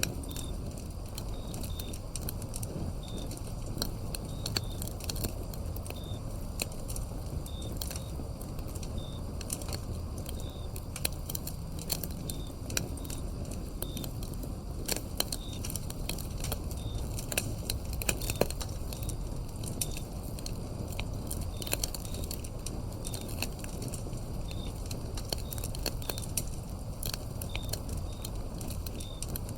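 Wood fire burning, with frequent sharp crackles and pops over a steady low rumble. Crickets chirp in short high notes behind it.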